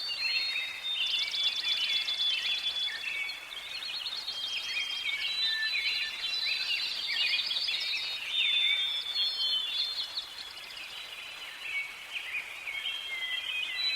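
Several birds singing at once in a forest dawn-chorus style: overlapping whistled notes, chirps and fast rattling trills, with a steady faint hiss beneath.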